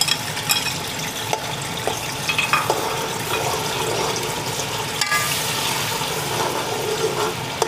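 Onion, garlic and tomato paste sizzling in hot oil in an aluminium pot as it is scraped in and stirred with a steel spoon, which clinks and scrapes against the bowl and pot now and then.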